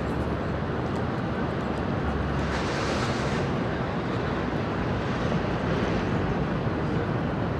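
Street traffic: a steady rumble of vehicles going by, with one passing close about three seconds in, its hiss swelling and fading.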